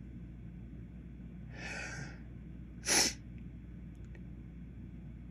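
A man's single short, sharp sneeze about three seconds in, preceded by a drawn breath; a pepper sneeze set off by inhaled white pepper.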